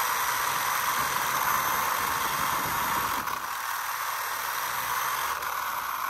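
A 3D-printed RC car chassis driving over asphalt: a steady whirring of its drivetrain and tyres, picked up by a phone mounted on the chassis, easing off slightly about three seconds in.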